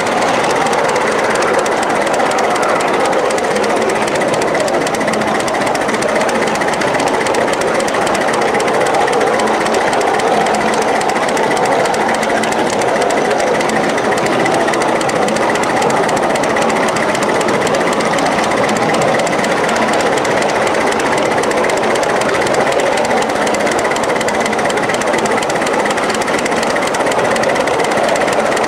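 1-inch-scale live-steam 0-4-0 switcher locomotive running steadily along the track with its riding car, a continuous dense clatter that does not let up.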